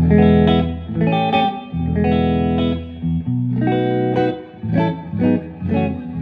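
Telecaster electric guitar played through the bright channel of a 1963 Standel 32J12T amplifier, a hybrid with a germanium-transistor preamp and 7591 power tubes into a 12-inch Jensen speaker, with a compressor. The tone is clean and bright, with little gain, as single notes and chords are plucked in short phrases with brief pauses between them.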